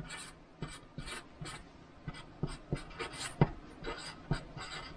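A pen writing on paper: short, irregular scratching strokes as a word is written out by hand.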